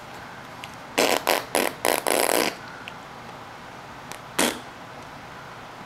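Short breathy puffs of sound from a mouth: about five in quick succession starting about a second in, then one more a couple of seconds later.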